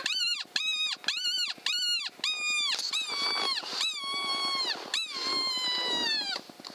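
Predator call playing a squealing animal distress call to lure a fox. It starts with a quick run of short, arched squeals about three a second, then gives three longer squeals of about a second each that slide down in pitch.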